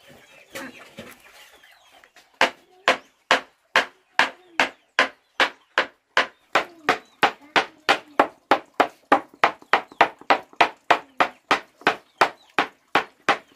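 Cleaver mincing raw meat on a plastic cutting board: sharp, even chops about three a second, starting about two seconds in.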